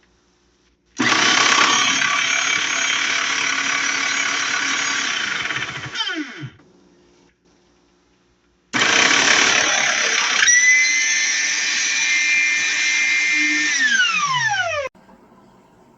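Electric meat grinder's motor switched on twice, each time running for about five or six seconds and then winding down with a falling whine after it is switched off.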